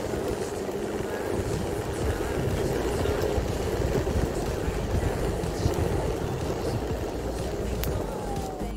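WOWGO 3 electric longboard rolling along an asphalt path: a steady rumble of the wheels on the tarmac mixed with wind rush. Near the end there is a brief whine that falls in pitch.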